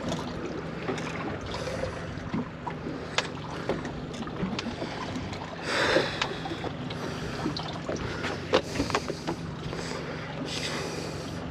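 Small fishing boat on open water: a steady wash of wind and water with a faint low hum, scattered light clicks and knocks, and two short rushes of noise about six and ten seconds in.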